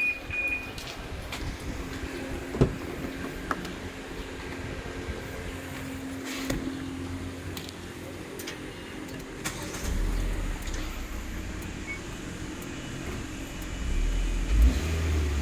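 Hyundai Tucson ix35 with an aftermarket keyless alarm system: a short electronic beep, then a few sharp clicks over a low steady hum, with a deeper low rumble coming in about ten seconds in.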